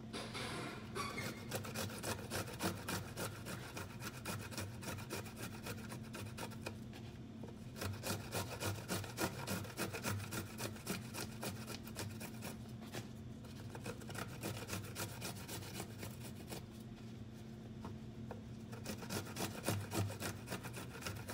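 Vegetables being grated by hand on a stainless steel box grater, a long run of repeated scraping strokes with a few short pauses.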